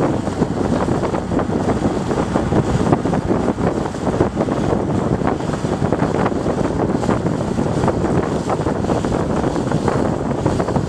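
Wind buffeting the microphone: a steady, dense rumble with uneven gusts, over the running of boat engines.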